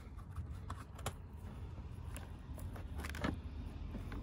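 Faint handling noise, a few light clicks and rustles as fingers press a stick-on Velcro strip onto a wooden recurve bow riser's arrow shelf, over a steady low rumble; the loudest click comes about three seconds in.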